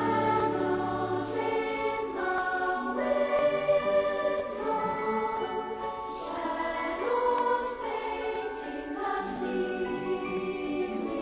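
Choral music: a choir singing slow, held notes that change every second or two.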